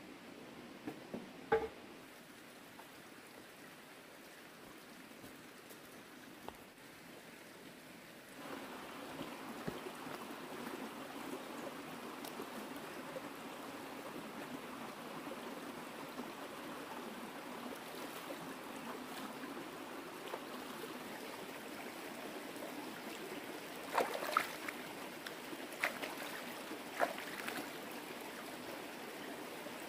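Water running with a steady trickle that starts about a third of the way in, with a few light knocks near the start and a few more near the end.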